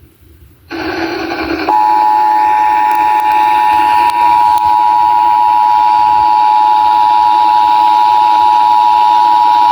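Emergency Alert System attention signal over an FM radio station: the steady two-tone 853 and 960 Hz alert tone, starting about two seconds in and held unbroken. It introduces a statewide EAS test message.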